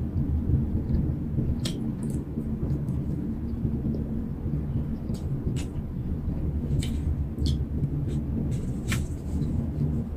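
Chewing and small mouth clicks while eating a steamed bun (siopao), with about half a dozen short sharp clicks scattered through. Under it runs a steady low rumble.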